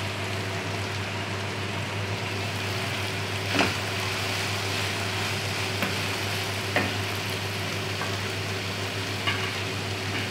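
Chopped vegetables sizzling steadily in hot oil in a non-stick wok while being stirred with a wooden spatula, which knocks against the pan a few times.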